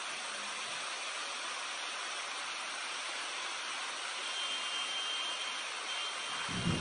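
Steady rushing hiss of a muddy flash-flood torrent surging past, with a brief low thump near the end.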